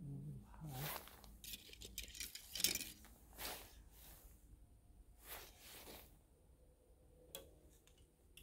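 Faint rustling and scraping of winter clothing and archery gear as an archer readies an arrow, with a single sharp click near the end.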